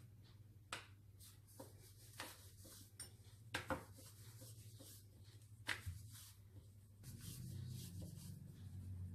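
Wooden rolling pin rolling out a roti on a round board: faint rubbing with a few light, scattered knocks, over a low steady hum.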